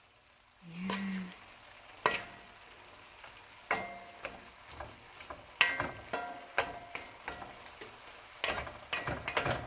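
String beans frying in a pan with a steady faint sizzle while being stirred. A utensil scrapes and knocks against the pan a dozen or so times at irregular moments, most densely near the end.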